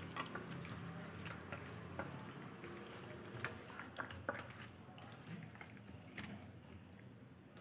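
Raw chicken lollipops being mixed by hand in a marinade in a steel bowl: faint wet squelches with scattered small clicks.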